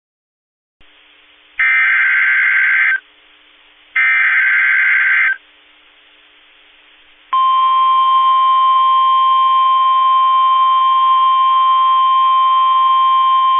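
Emergency Alert System broadcast opening a new warning: two bursts of SAME header data, each a harsh digital warble about a second and a half long, then about seven seconds in the steady, loud warning alarm tone begins.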